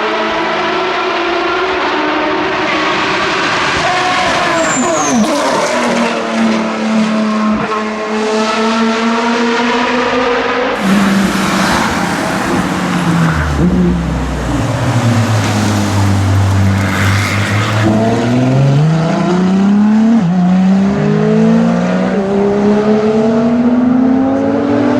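V12 supercar engines at high revs, the pitch rising and falling through gear changes. About eleven seconds in the sound changes abruptly to a deep, low-revving engine, which then accelerates in rising steps with short drops at each upshift.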